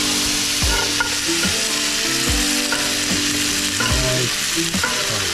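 Herb butter with garlic, rosemary and thyme sizzling steadily in a hot skillet around a venison rib rack as it is spoon-basted, with the spoon stirring in the butter.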